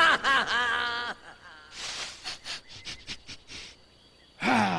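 Wordless vocal sounds from a cartoon character: a pitched, wavering voice for about a second, then much quieter breathy sounds.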